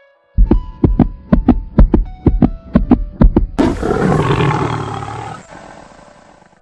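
An edited end sound effect: a quick run of deep, booming thumps, about four a second, then a loud rushing roar that fades out.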